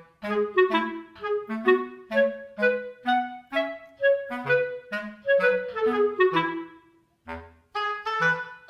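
Background music: a light, bouncy melody of short notes, about two or three a second, with a brief pause near the end before it picks up again.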